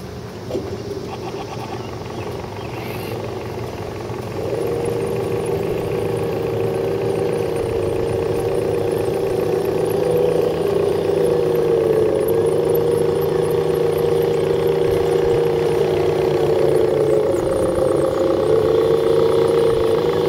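Electric motors and gearboxes of several scale RC crawler trucks whining steadily as they crawl slowly over rocky dirt. The whine sets in about four seconds in and grows louder as the trucks come closer.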